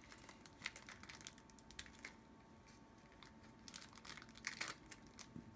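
Faint crinkling of a small plastic toy packet being cut open with scissors, with scattered soft snips and rustles in a few short clusters.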